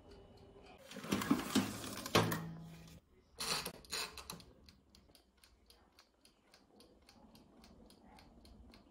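Mechanical wind-up timer of a countertop air-fryer oven ticking steadily, about four ticks a second. Louder clattering and rustling come about a second in and again about three and a half seconds in, as the oven is handled and its timer knob is turned.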